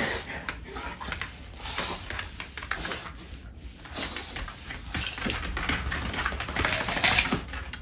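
A medium-sized mixed-breed dog's claws clicking and scrabbling on a hard floor in quick, irregular taps as the excited dog moves about.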